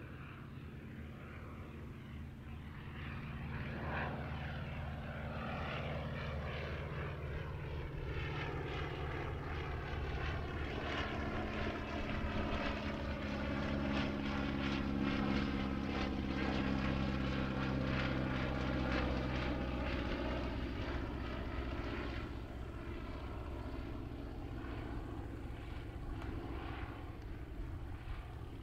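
Focke-Wulf Fw 44 J Stieglitz biplane's seven-cylinder Siemens-Halske Sh 14 radial engine and propeller droning steadily in flight. It grows louder as the aircraft passes closest, about halfway through, then fades a little as it draws away.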